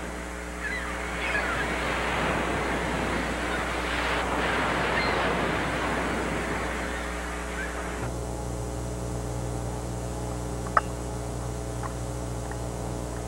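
Waterfront ambience: a steady wash of water with short bird calls over it. About eight seconds in it cuts abruptly to a steady low hum, with one sharp click a few seconds later.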